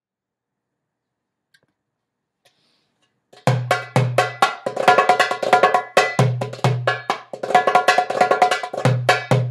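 Gawharet El Fan "Sombaty Plus" darbuka played with the hands, entering after about three seconds of near silence. Pairs of deep dums recur every few seconds, with fast, crisp teks and rolls between them.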